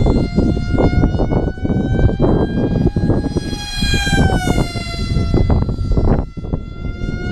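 FPV quadcopter's brushless motors screaming in a high whine, the pitch climbing about four seconds in and then easing back down, over rough, gusty wind rush.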